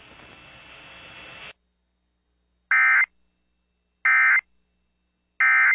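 Faint radio hiss cuts out, then three identical short electronic data bursts about a second and a half apart: the Emergency Alert System's end-of-message signal, which closes the alert.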